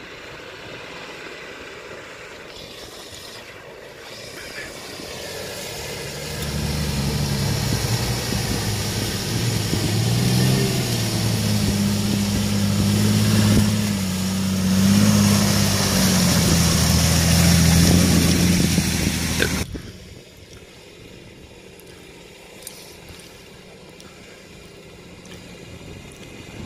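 Nissan Patrol off-roader's engine working hard as it drives through a deep muddy puddle, with water splashing around the wheels; the engine note rises and falls under load. About twenty seconds in it cuts off abruptly to quiet wind noise.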